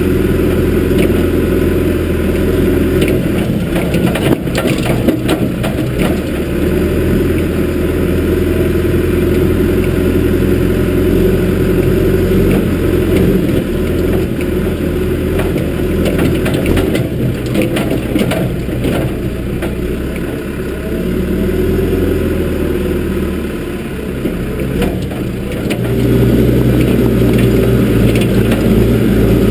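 John Deere backhoe loader's diesel engine running as the machine is driven along, with the loose clanking and rattling of the machine over the engine. Near the end the engine grows louder.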